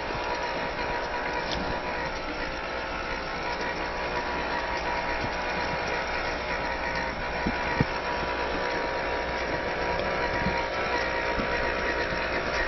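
Small electric motor and geartrain of a WPL C74-1 RC car running steadily, with a single sharp knock about eight seconds in.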